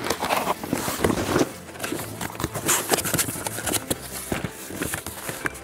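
Cardboard box being opened by hand: packing tape torn off and the flaps pulled open, a busy run of rustling and scraping with many short sharp snaps.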